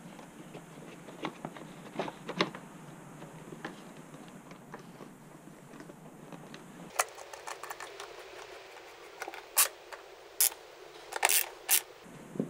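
Scattered clicks, taps and light scrapes of hand tools and metal parts being handled, irregular and unhurried, with a handful of sharper, louder clicks in the second half.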